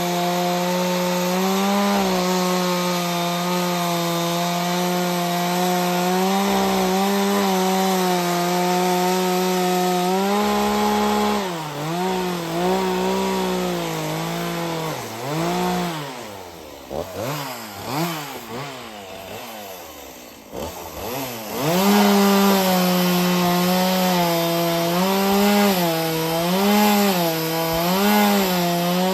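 Chainsaw on a chainsaw mill running at high revs and ripping through a log. About ten seconds in the revs dip and surge repeatedly and the sound gets quieter for several seconds, then it comes back up to a steady high note and cuts on, wavering a little near the end.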